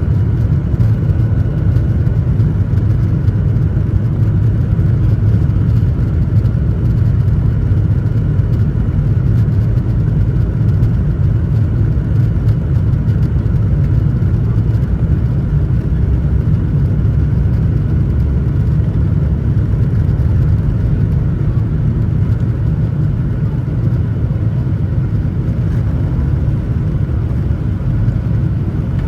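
Boeing 737-900ER's CFM56-7B turbofans at takeoff thrust heard from inside the cabin: a loud, steady low rumble of engines and airflow, with a faint steady whine above it.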